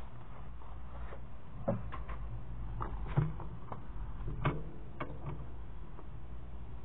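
A handful of irregular light knocks and clicks from handling craft supplies (stickers and paper pieces) on a tabletop, over a steady low hum.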